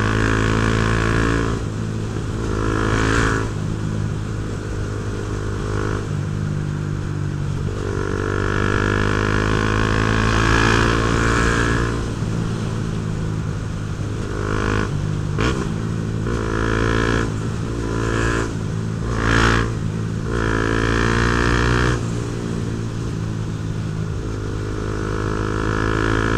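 Honda CB Twister single-cylinder motorcycle engine through an aftermarket Protork Mine 3 sport exhaust, under way: the revs rise several times and drop back between, with a few sharp cracks in the middle.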